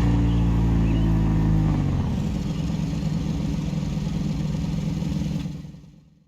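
Ducati Desmosedici RR's 989 cc V4 engine held at steady revs, then dropping back at about two seconds into a rough, pulsing idle that fades away near the end.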